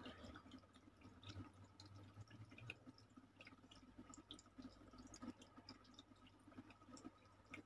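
Near silence: room tone with a faint low hum and a few scattered soft ticks.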